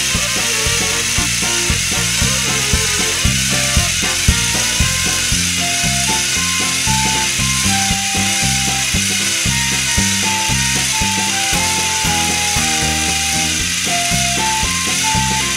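Battery-powered TrackMaster toy engines' gear motors grinding and clicking as two engines push against each other head to head, with background music carrying a simple melody over a steady beat.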